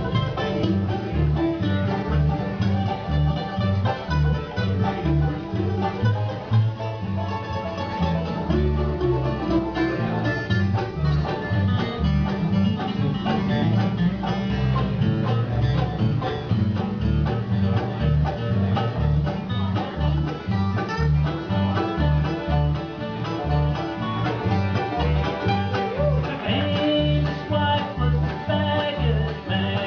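Bluegrass band playing live: mandolin, fiddle, banjo and acoustic guitar over an upright bass plucking a steady, regular bass line, with no singing.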